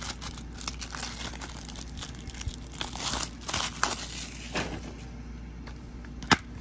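Plastic shrink-wrap being torn and peeled off a Blu-ray case, crinkling in short bursts. Near the end comes one sharp plastic snap, the loudest sound, as the case is popped open.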